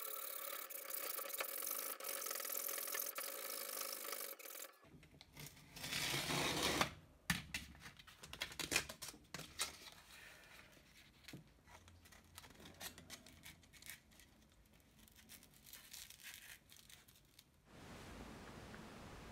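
Hacksaw sawing through a threaded steel rod for about five seconds. Then a loud tear about six seconds in, followed by scattered rustles and clicks of sandpaper being handled.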